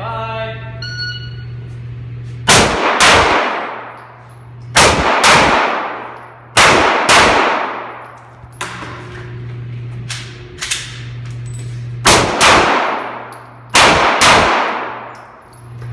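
Semi-automatic pistol shots, mostly in quick pairs about half a second apart, each crack ringing out in the reverberant indoor range; a few quieter shots come in the middle. A steady low hum runs underneath.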